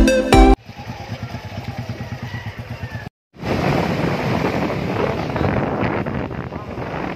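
Electronic intro music cuts off about half a second in, giving way to a motorcycle running at speed with wind and road noise on the rider's microphone. There is a short dropout about three seconds in, and the noise is louder after it.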